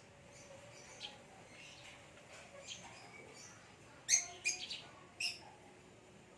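Lovebirds, a green Fischer's lovebird and a parblue, giving short, sharp chirps. The chirps come scattered, with a quick run of louder ones about four seconds in and another a second later.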